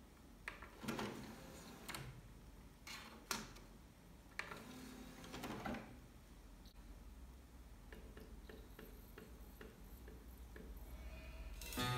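Onkyo FDR-155 DVD receiver's disc drive loading and reading a disc: a few faint clicks and short mechanical whirs, then, about eight seconds in, a run of light irregular ticks for a couple of seconds.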